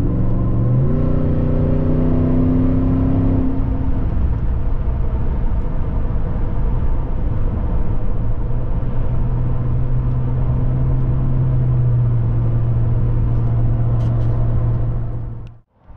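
Ford F-150's 5.0 L Coyote V8 through a Borla ATAK single-in, dual-out cat-back exhaust, heard from inside the cab with the windows cracked while driving. The engine note rises in the first second and holds for a few seconds, then settles into a steady low drone over road noise. The sound cuts off abruptly just before the end.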